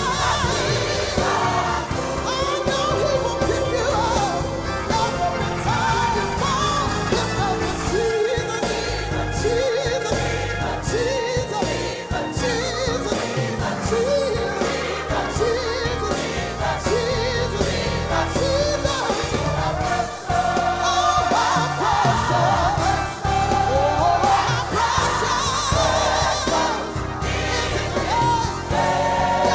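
Gospel mass choir singing, with a woman's solo voice on a microphone leading over the choir in runs that bend up and down.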